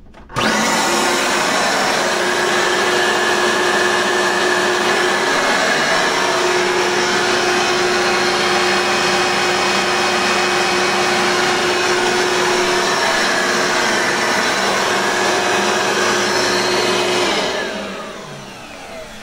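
A black-and-gold Eureka Powerline upright vacuum cleaner, the 10-amp version, switched on and running steadily, then switched off near the end and winding down. It sounds absolutely amazing: a healthy-running motor.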